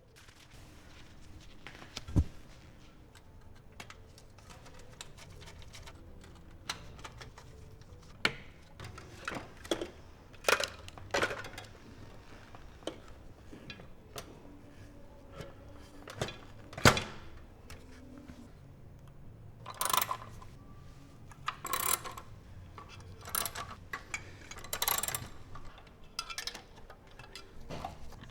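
Irregular clicks, knocks and short clatters of Macintosh Performa 580CD computer parts being handled and set down during reassembly. The two sharpest knocks come about 2 seconds in and about 17 seconds in, and there are busier bursts of clatter in the middle and toward the end.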